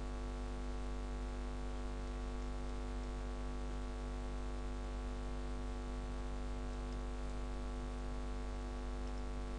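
Steady electrical mains hum, a low buzz with many even overtones, over a constant hiss.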